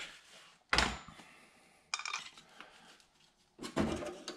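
A metal hand tool clinking and scraping against a pierced freeze plug in the engine block as it is worked loose. There are a few separate clinks with short pauses between them, the first the loudest.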